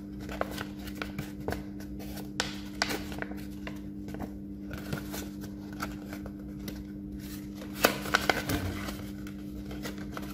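A large sheet of paper being folded and pressed along its creases by hand: irregular rustling and crinkling, with a cluster of sharper crackles about eight seconds in. A steady low hum runs underneath.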